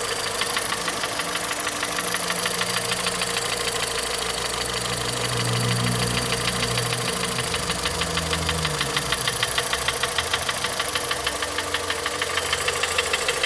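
Volkswagen Polo 1.6 engine idling with a rapid, regular ticking from the top of the engine. This is the intermittent noise that the mechanic suspects comes from a hydraulic lifter, even though the lifters are new.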